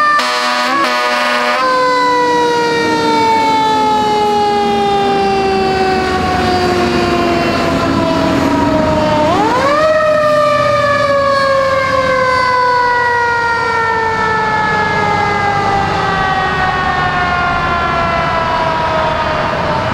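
Fire truck siren on an aerial ladder truck, after a brief choppy start, winding slowly down in pitch, rising sharply about nine seconds in, then winding slowly down again, over the truck's engine and road rumble.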